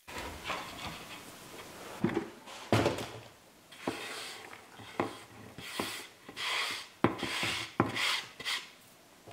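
Hand scraping and sweeping potato peelings across a wooden cutting board and off its edge into a plastic bucket: a string of short scraping strokes, with a few knocks of the board against the bucket.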